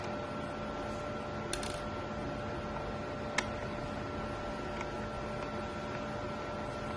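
Steady background hiss with a faint steady whine, broken by a few small clicks; the sharpest comes about three and a half seconds in.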